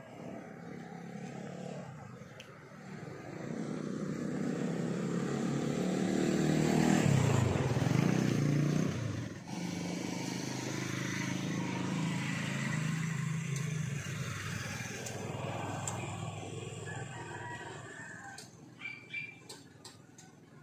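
A motorcycle engine passes by, growing louder to its loudest about seven or eight seconds in, with a bend in pitch, then fading away. A few sharp clicks come near the end.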